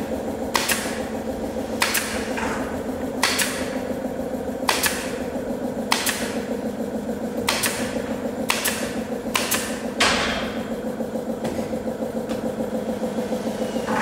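Pneumatic nail gun firing into wooden boards: about ten sharp shots, roughly a second apart, each followed by a short hiss of exhaust air. A steady engine drone runs underneath.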